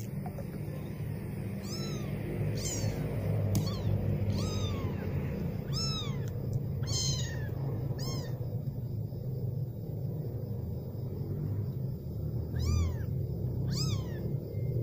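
Very young kitten mewing: a string of short, high-pitched cries, each rising then falling in pitch, about a second apart, then a pause and two more near the end, over a low steady rumble.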